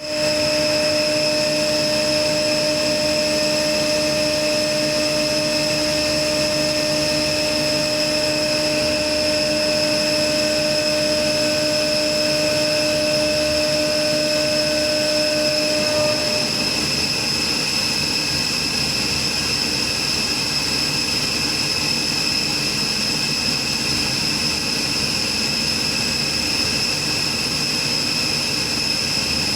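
A 500-ton HVAC chiller running at full operation: a steady machine noise with a constant high-pitched whine. A lower hum stops about 16 seconds in while the rest runs on.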